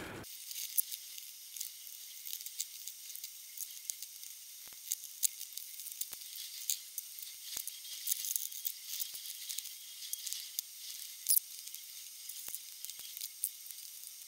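Thin, high-pitched crackling and scraping as a plastic pry tool is worked under the edge of a cured carbon fibre part to free it from its 3D-printed mould, with scattered sharp ticks as the resin lets go.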